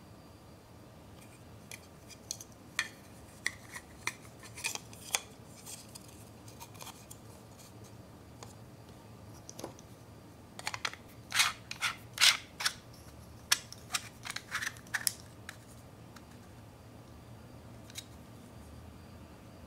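Hard plastic parts of a Gudetama Marugoto Pudding egg pudding maker clicking and scraping as an egg is fitted into its holder and a threaded ring is put on. Scattered sharp clicks, with a dense run of louder ones about halfway through.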